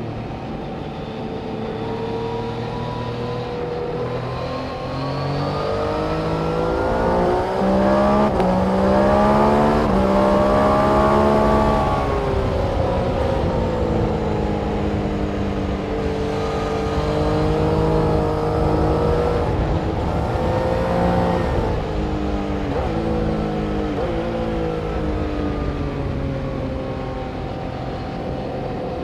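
Engines of several vehicles lapping a race circuit at once. Their pitch climbs in steps through gear changes and sinks as they slow for the corner, overlapping with no break.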